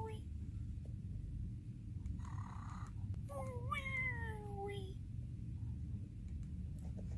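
Cartoon snoring sound effect: a short rasping snore in about two seconds in, then a long whistle out that falls in pitch with a little hitch near its start, over a steady low hum.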